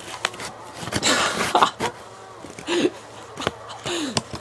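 A person's voice in short, wordless vocal sounds with sliding pitch, mixed with a few clicks and rustles.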